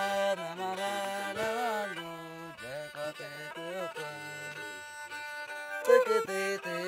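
A homemade bowed stick fiddle with a round resonator, played by hand: a wavering, sliding melody over a steady low drone, with a louder stroke near the end.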